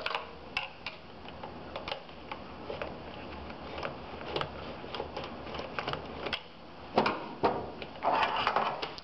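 Screwdriver backing out the screws that hold an oil burner's flame control box: scattered light clicks and scrapes of metal on the housing. Near the end come a louder knock and a short scraping rattle as the box is worked loose.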